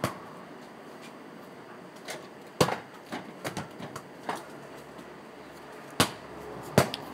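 A basketball being bounced and thrown at a hoop: a string of sharp thuds and knocks, the loudest at the start, about two and a half seconds in, and twice near the end.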